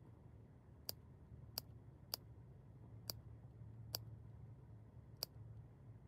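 Scissors snipping short clips into the curved seam allowance of a sewn cotton face mask, each cut a sharp faint click, six in all, irregularly about a second apart.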